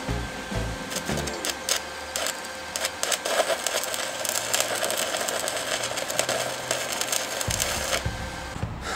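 Stick (MMA) arc welding on a steel pipe: the arc crackles and sizzles steadily, with many sharp pops through it.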